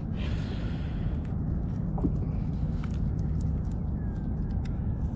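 Steady low background rumble with a few faint light clicks while hands work bait onto a fishing hook.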